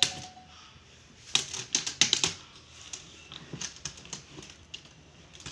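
Plastic screen bezel of an MSI Thin laptop being pried off the lid by hand, giving several clusters of sharp plastic clicks and snaps, the loudest about two seconds in.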